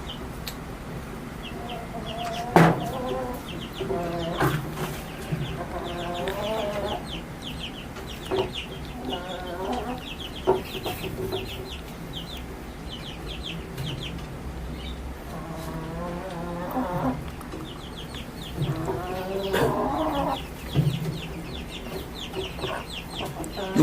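A chicken sick with chronic snoring, a respiratory illness, calls in four short bouts, with a few sharp knocks among them. A fast run of faint high chirps goes on underneath for most of the time.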